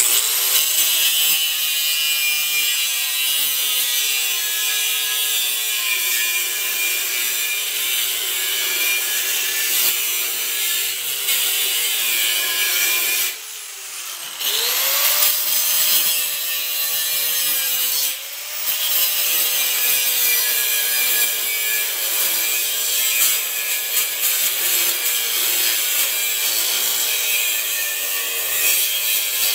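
Angle grinder cutting through a steel mounting plate: a loud, steady, high-pitched grinding that stops briefly about 13 seconds in, with the motor's whine sliding in pitch as it comes back, and dips once more near 18 seconds.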